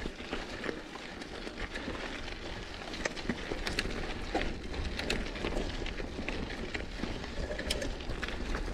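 Mountain bike rolling along a dirt singletrack: tyres crunching over the trail with frequent sharp clicks and rattles from the bike, over a steady low rumble.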